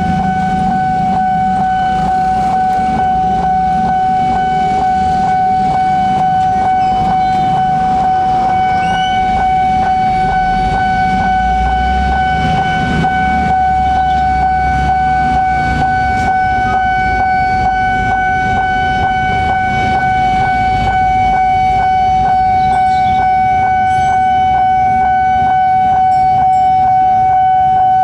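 Level-crossing warning alarm sounding: a steady high ringing tone pulsing in quick regular beats. About halfway through, a low hum joins it as the electric barrier's motor lowers the boom arm.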